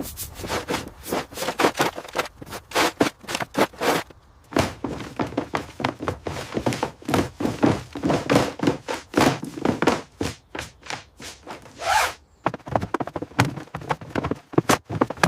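A rapid, irregular run of knocks and thuds, several a second, with a brief lull about four seconds in.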